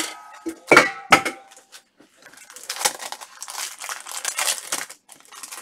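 A trading card being worked into a hard plastic magnetic card holder: a few sharp knocks with a short ring in the first second or so, then about three seconds of crinkling plastic.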